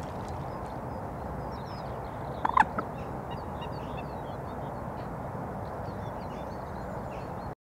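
Steady low hum of distant road traffic with small birds chirping. About two and a half seconds in, a larger bird gives one short, loud call of a few quick notes. The sound cuts out just before the end.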